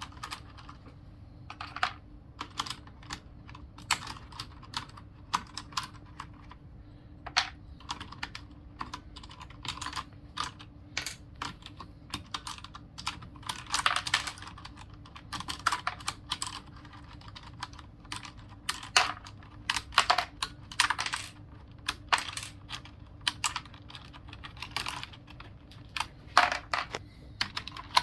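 Irregular plastic clicks and clacks of a Logitech G710+ mechanical keyboard's keys and keycaps being worked by hand, some in quick clusters, over a faint steady hum.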